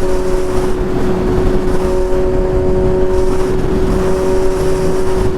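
Suzuki GSX-S750's inline-four engine running at a steady speed while riding, a constant unchanging engine note over wind and road rush.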